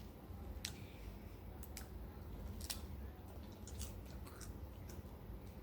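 Someone eating a crunchy snack: scattered short, crisp crunches and clicks from biting and chewing, fairly quiet.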